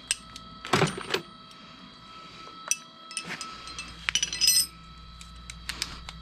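Metal sockets clinking as they are picked out of and handled in a socket set: scattered separate clinks, with a short run of ringing metallic clinks about four seconds in.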